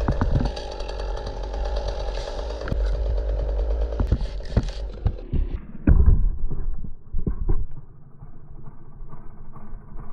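Chainsaw running at high revs, then dropping back to idle about halfway through. Several heavy thuds come in the middle, the loudest about six seconds in.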